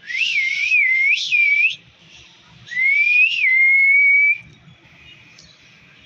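Two close, loud whistled phrases. The first wavers up and down three times. The second rises to a peak and then holds one steady note.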